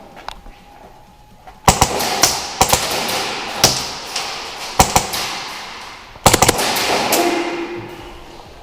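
Airsoft guns firing in short bursts and single shots, a few volleys spread over several seconds, each echoing and fading out slowly.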